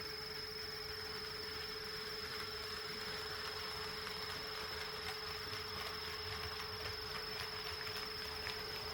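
HO-scale model train running on KATO Unitrack, its wheels giving faint light clicks over the rail joints from about three seconds in. Two steady thin whines sound throughout, one high and one mid-pitched.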